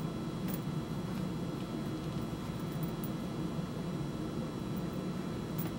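Steady low room hum, with a couple of faint ticks about half a second in and near the end from hands drawing thread through leather while hand-stitching.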